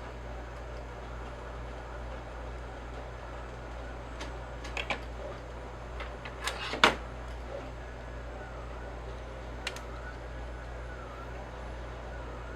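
Several sharp clicks and knocks, the loudest about seven seconds in, over a steady low hum. A faint wailing siren starts in the second half.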